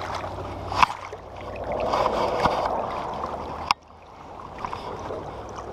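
River water rushing and splashing close to the microphone. It swells for a couple of seconds, then drops off abruptly with a click about three and a half seconds in.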